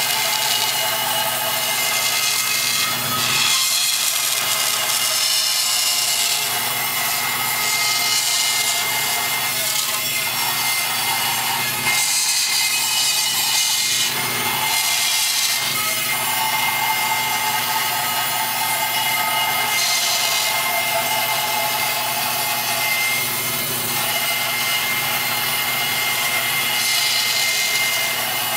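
Bandsaw ripping a mahogany board fed flat across its table: a steady machine noise with a thin high whine, the cutting sound swelling and easing as the board is pushed through.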